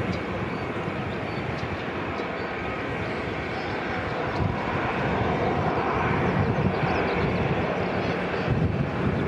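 Twin jet engines of a Boeing 787 taxiing, a steady rush with a faint whine, growing slightly louder in the second half. Near the end, wind buffets the microphone.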